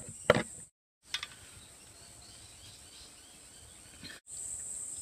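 A kitchen knife cutting through a lemon onto a wooden board, one sharp knock just after the start. Then quiet outdoor ambience, and after a brief cut in the sound near the end, a steady high-pitched insect drone.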